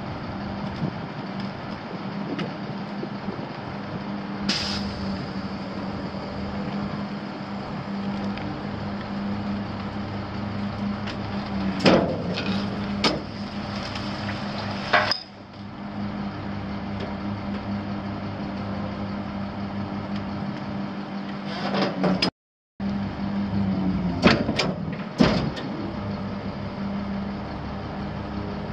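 Caterpillar 3126 six-cylinder diesel of a refuse truck idling steadily, with a short hiss about four seconds in and a few sharp metal clanks around the middle and again near the end.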